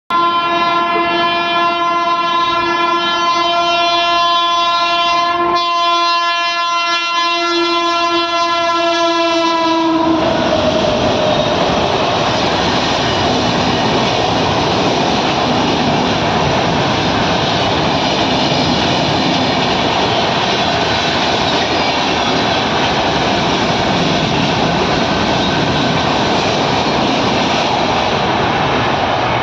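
Bikaner Duronto Express sounding a long, shrill horn for about ten seconds, broken briefly about halfway. The horn's pitch drops as the train passes. It is followed by the steady rush and clickety-clack of the train's coaches going by.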